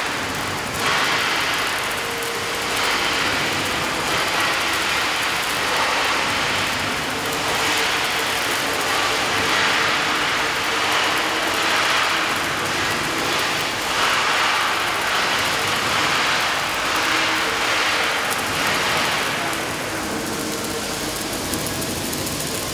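Robotic arc welding on a steel wall: the welding arc hissing and crackling steadily, swelling and easing every couple of seconds.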